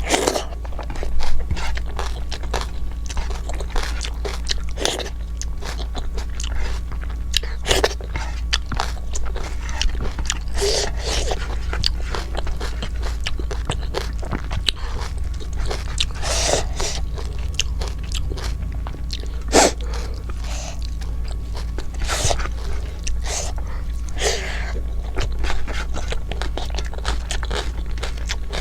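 Close-miked eating: chewing and biting with irregular sharp crunches, over a steady low hum.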